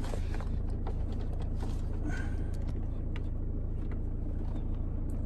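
A car engine idling steadily, a low even hum, with a few light clicks and knocks from handling.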